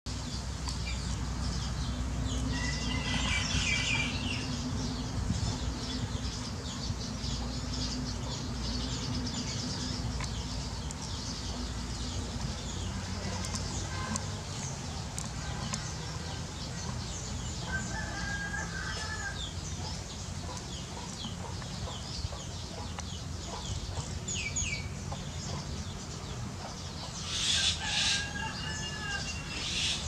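A flock of house sparrows chirping busily and continuously. A few longer, louder bird calls stand out, the loudest near the end, over a steady low hum.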